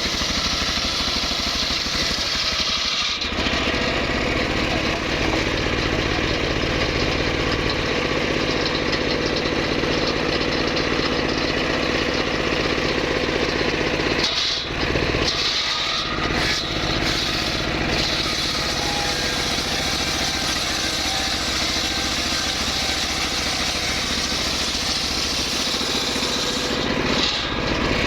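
Engine of a wood saw running steadily, with brief dips about halfway through and near the end.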